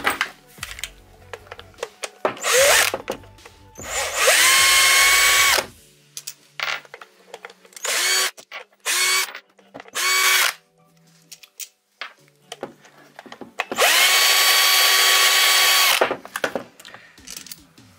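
Cordless drill-driver with a hex bit spinning out the hex screws that hold an electric scooter's split rim together. It goes in about six separate runs, each starting with a quick rising whine, the two longest lasting about two seconds, with light clinks of screws between them.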